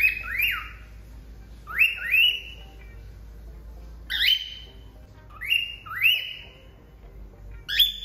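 Female cockatiel calling: short rising whistles, mostly in pairs, repeated about every two seconds, with a single whistle near the end.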